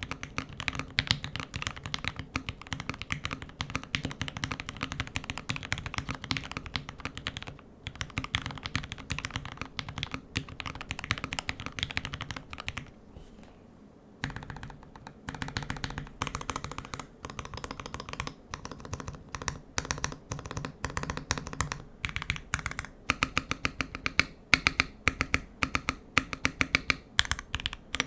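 Typing on a custom 60% mechanical keyboard, a Tokyo60 v4 with Everglide Aqua King linear switches and GMK keycaps: a fast, uneven run of key strokes, with a short pause about thirteen seconds in.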